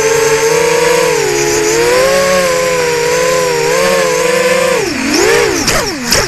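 Brushless motors (Racerstar 2205 2300KV) and KingKong 5040 three-blade props of a ZMR250 FPV racing quadcopter, heard up close from its own camera, whining steadily with the pitch wavering as the throttle changes. Near the end the pitch drops sharply twice and the whine cuts off as the quad comes down on the grass.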